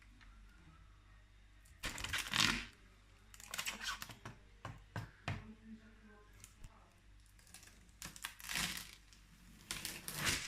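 Irregular handling noises, rustles and clicks, in a few short bursts over a steady low hum.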